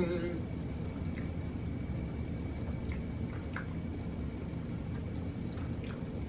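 A person chewing food with the mouth mostly closed: faint soft mouth noises and a few small clicks over a steady low room hum. A hummed 'mm' tails off just after the start.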